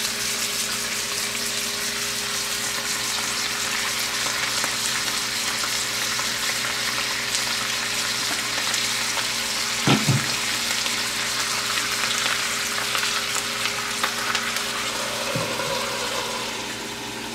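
Rock bass and wild greens frying in a cast-iron skillet with butter and hard cider: a steady sizzle, with a light knock about ten seconds in. Near the end the sizzle drops a little as a lid goes on the pan.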